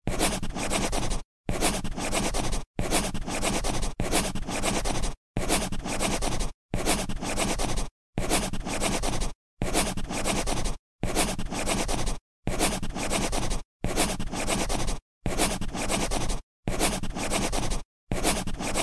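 Scratchy writing or scribbling sound effect, looped in repeated bursts of a little over a second, each cut off by a brief silence.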